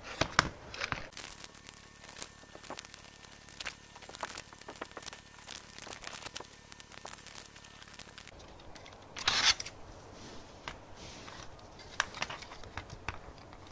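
Small plastic clicks and rustling as square illuminated push buttons are handled and pressed into a laser-cut acrylic panel, with a louder rustle about nine seconds in.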